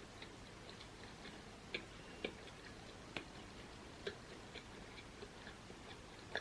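Quiet eating sounds: a few sharp, irregularly spaced clicks and smacks of a mouth chewing food, over a faint steady hiss.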